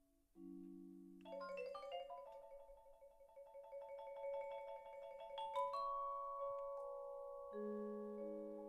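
Vibraphone played with mallets: a low two-note chord, then a quick flurry of notes about a second in that rings on into long, sustained chords. A fresh chord is struck near six seconds, and low notes come in near the end.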